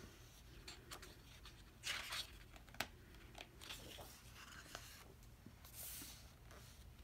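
Faint rustling of a thick glossy photo book's pages being handled and turned, with soft swishes around two seconds in and near six seconds as a page turns over, and a few light clicks.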